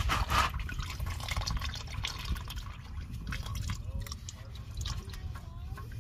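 Engine oil dripping and trickling from a loosened spin-on oil filter as it is unscrewed by hand, with many small scattered drips and a brief louder burst of noise at the start.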